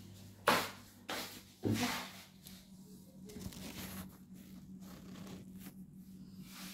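Handling noise of a phone camera held and moved about by hand: three sharp knocks in the first two seconds, then faint rubbing and clicks over a low steady hum.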